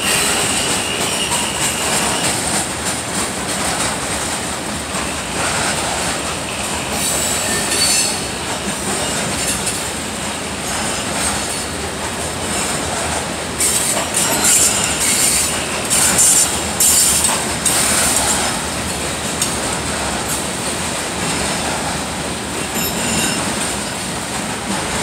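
Freight train of coal hopper cars rolling past at close range: a steady rumble of steel wheels on rail, with high-pitched wheel squeals that come and go, strongest around the middle.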